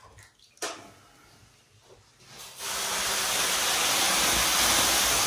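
A single knock, then water thrown onto the hot rocks of a wood-fired sauna stove, flashing into steam. A loud, steady hiss comes in about two and a half seconds in and keeps going.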